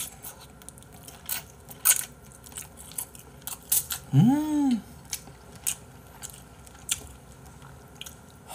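Close-miked chewing of spicy braised chicken (dakdoritang), with many short wet crunches and clicks. About four seconds in comes a short hummed note that rises and falls.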